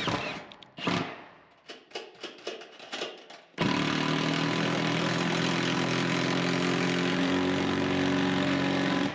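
A few light knocks and clicks, then a Milwaukee Gen 4 half-inch cordless impact wrench, fitted with a 1/4-inch socket adapter, runs steadily for about five and a half seconds, driving a fastener through a bracket into the metal roof, and stops sharply.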